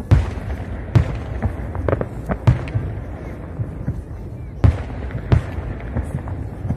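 Aerial firework shells bursting in an irregular series of sharp bangs, about seven in all, over a steady low background rumble.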